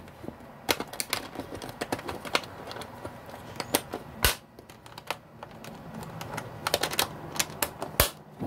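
Metal latches on a plastic enclosure's lid being worked and snapped shut: a run of light clicks and rattles, with two sharper snaps, one about four seconds in and one near the end.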